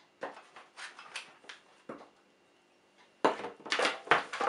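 Handling noise of a pipe welder's metal wire stand and tools knocking against each other and the plastic carrying case: a few light clinks and knocks in the first two seconds, then a louder run of knocks and rattles near the end.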